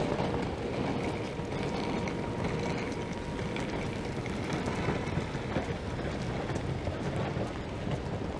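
Busy downtown street in the rain: traffic running on wet pavement, a steady wash of noise, with a faint steady hum near the start.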